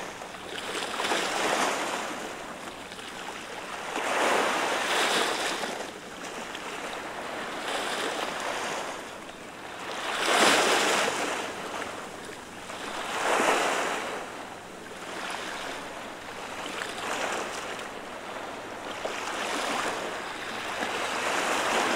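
Small waves washing over the rocks of a breakwater, each one a swell of splashing surf that rises and falls away every two to four seconds; the largest breaks about ten seconds in.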